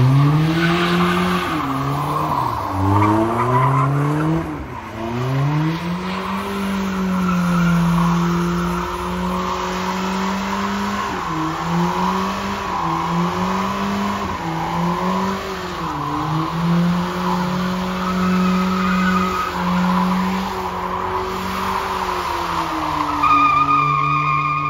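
Car engine revved hard while its tyres spin and squeal. For about the first six seconds the revs climb in several quick stabs. After that they hold high with short dips, the tyre squeal running on steadily.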